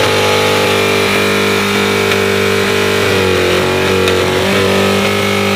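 Honda CRX engine held at a steady high rpm while stationary, dipping slightly about halfway through, as it is thrashed with smoke pouring from its engine bay.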